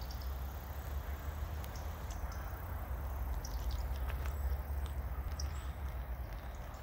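Outdoor ambience: a steady low rumble with scattered short, high chirps of small birds.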